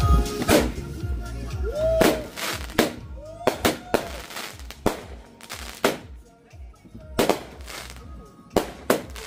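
A consumer firework cake on the ground firing its shots one after another: about a dozen sharp bangs, a second or less apart and irregular, as the shells burst overhead. A couple of short whistles rise and fall between the first bangs.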